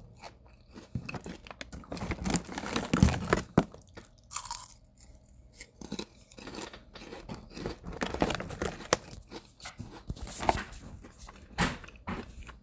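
Close-up sound of someone chewing potato chips: irregular crisp crunches and crackles, coming in clusters with short quieter gaps between.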